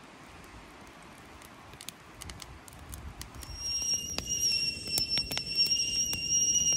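A whistling stovetop kettle on a grill over a wood campfire starts to whistle about halfway through, a steady high whistle that means the water has come to the boil. The fire crackles and pops throughout.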